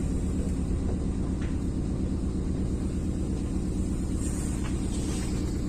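Steady low rumble and hum of a Gakunan Railway electric train running slowly into a station, heard from inside the front cab.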